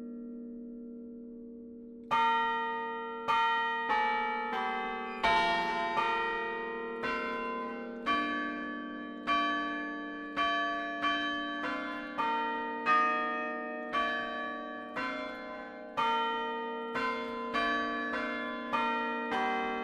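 Church tower chime of bells played by a chimer. The tail of one bell fades for about two seconds, then bells of different pitches are struck one after another in a tune, about one or two strikes a second, each ringing on under the next.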